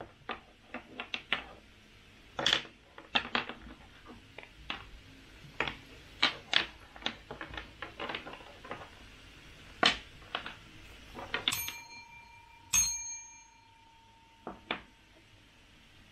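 Irregular light clicks and taps of playing cards and game pieces being handled and set down on a table. About two-thirds of the way through, a short ringing tone sounds, followed a second later by another sharp strike.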